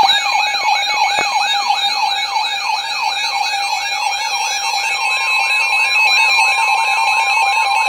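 Weather-alert radio alarm sounding for a NOAA Weather Radio warning: a fast siren-like warble of rising sweeps, about three a second, over steady tones.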